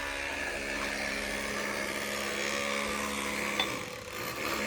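A steady mechanical hum, like a small motor or power tool running, with a single click about three and a half seconds in.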